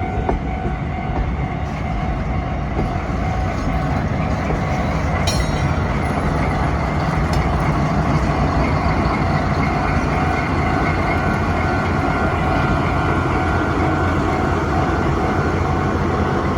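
Freight train carrying Tsurumai Line N3000 subway cars, hauled by a diesel locomotive, rolling past over a level crossing, getting a little louder about eight seconds in and staying steady.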